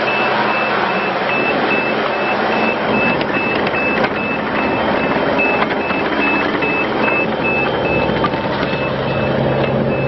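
Takeuchi TL230 compact track loader's Kubota diesel engine running as the machine drives, with its reversing alarm beeping steadily, about two and a half beeps a second.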